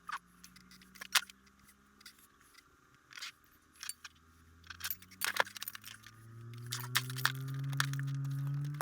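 Irregular clicks, taps and small rattles of hands handling guitar pedals, cables and plugs on a pedalboard. Under them a low hum slowly rises in pitch and grows louder over the last few seconds.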